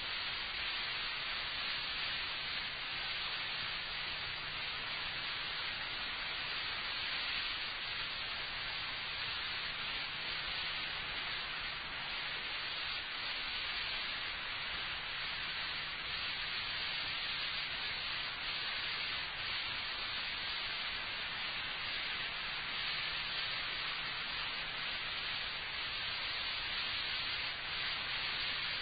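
Steady hiss of the recording with no speech, with a faint low hum underneath.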